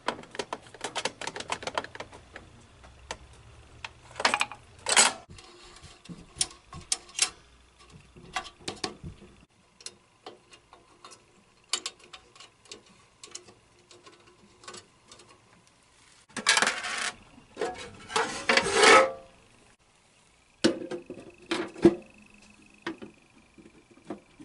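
Metal clicks, knocks and rattles of a vintage coin-op gumball machine's crank and coin mechanism being turned and handled, with two louder rattling stretches about two thirds of the way in; the mechanism is jamming partway through the five turns a nickel should give.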